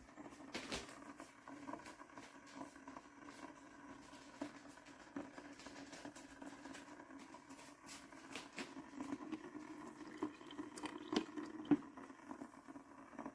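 Hamilton Beach BrewStation coffee maker making faint crackling and ticking sounds over a low steady hum. This is the noise the owner says it keeps making while holding the finished coffee warm.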